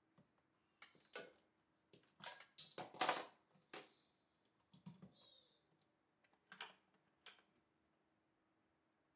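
Scattered faint clicks and knocks of plastic as the hopper and lid of a Nama J2 cold press juicer are handled and pressed into place, with a cluster of them a couple of seconds in. The juicer's motor is not running: it will not switch on.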